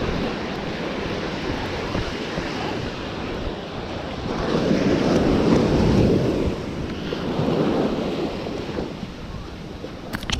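Ocean surf washing up the beach, with one wave breaking louder about halfway through, and wind buffeting the microphone.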